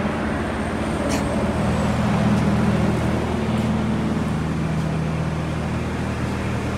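Heavy truck's diesel engine running steadily at low revs as the truck rolls slowly, its pitch shifting slightly a couple of seconds in. A short click about a second in.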